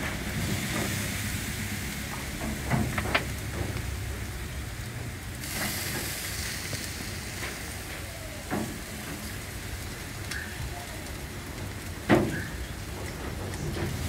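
Marinated jerk chicken sizzling on a hot grill grate as pieces are laid down, with a few short knocks and clatters as they are set on the grate, the loudest about twelve seconds in.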